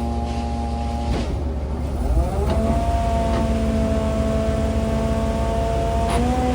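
An engine speeds up about two seconds in, runs steadily at the higher speed for about four seconds, then starts to drop back near the end.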